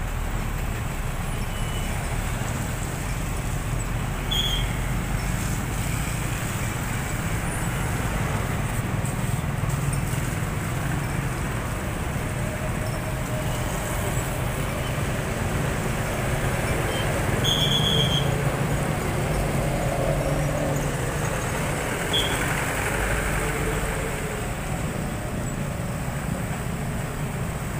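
Road traffic: diesel trucks loaded with sugar cane, motorcycles and cars running and passing steadily. There are a few short high-pitched squeaks, about four seconds in, near eighteen seconds and again around twenty-two seconds.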